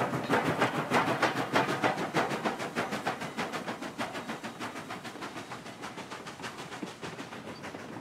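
Southern Railway 4501 steam locomotive chuffing, its exhaust beats coming evenly at about four to five a second. The beats grow fainter through the second half as the engine moves off.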